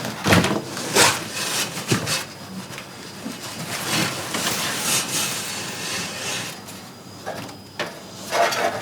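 Cardboard packaging of a large PC case being handled and pulled apart: a few sharp knocks and scrapes in the first two seconds, then a longer rustling scrape, with another burst of scraping near the end.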